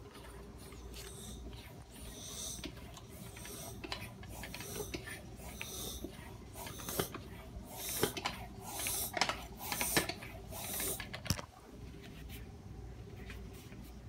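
Floor bicycle pump worked in repeated strokes, each a short rush of air, about one a second, inflating a patched inner tube. The strokes stop about eleven seconds in, with a sharp click near the end.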